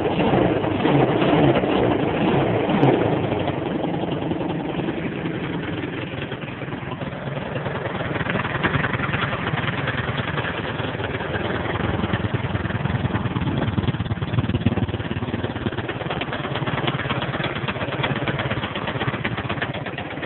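A 250 sport ATV's engine running, loudest in the first few seconds and easing off over about six seconds before holding fairly steady.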